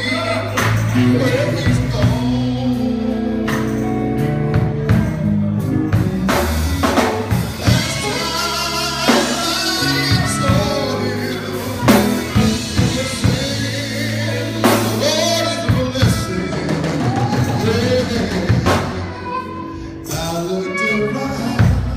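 Live gospel quartet music: a male lead singer sings over a drum kit, bass and guitar, with regular drum hits under the voice.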